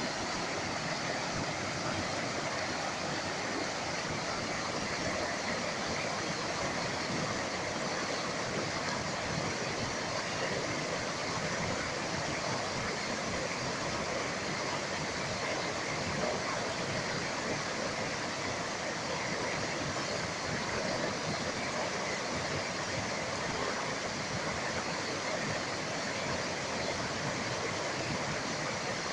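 A rocky mountain stream rushing through small rapids between boulders: a steady, unbroken noise of white water.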